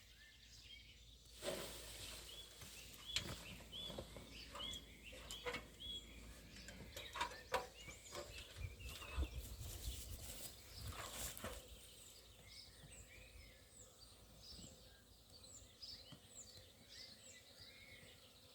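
Small birds chirping over and over in the background, with scattered faint knocks and rustles through the first two-thirds or so, then mostly just the chirping.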